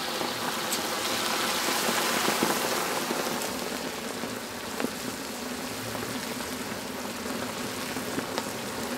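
Fish pieces deep-frying in a large karahi of hot oil: a steady sizzle with a few scattered sharp pops.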